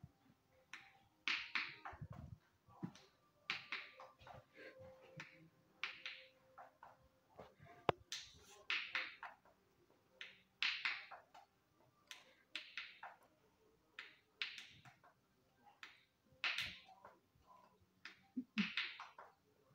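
Silicone bubbles of a pop-it fidget spinner being pressed with the thumbs, making quick runs of small pops, a run every second or two, with one sharper click about eight seconds in.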